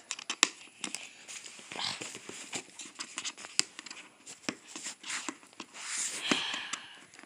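Fingers picking at and peeling packing tape off the edge of a microphone box: scattered scratches and clicks with a few short tearing rips.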